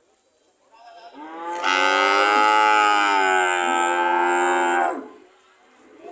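A cow mooing: one long, loud moo of about four seconds that starts about a second in and cuts off near the end.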